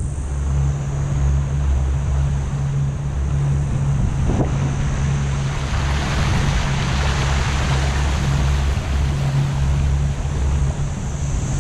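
Outboard motor on a small aluminium boat running at a steady cruising speed, a constant low drone, with water rushing along the hull and wind buffeting the microphone.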